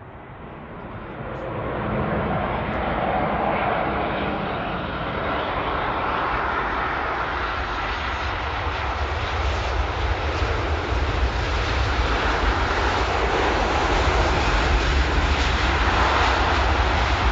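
Jet airliner engines passing close by: the noise swells over the first two seconds, then stays loud and keeps building slowly, with a deep rumble growing stronger toward the end.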